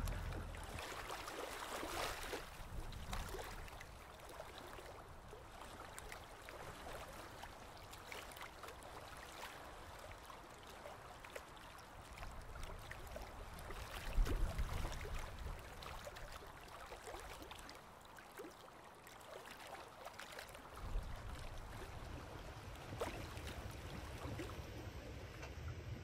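Sailboat's watermaker (desalinator) running, making fresh water from seawater: a steady noise, with a low rumble swelling briefly past the middle and again in the last few seconds.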